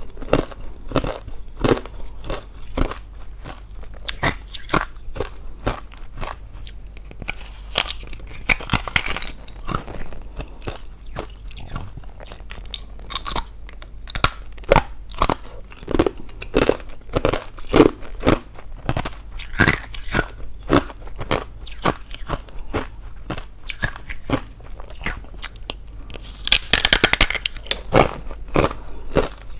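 A person biting and chewing thin hollow ice: an irregular run of sharp, crisp crunches and cracks, with denser clusters of crackling around nine seconds in and again near the end.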